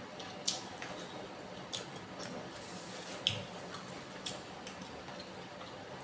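Close-miked eating sounds of a person chewing bakso meatballs and seblak: irregular wet mouth clicks and smacks.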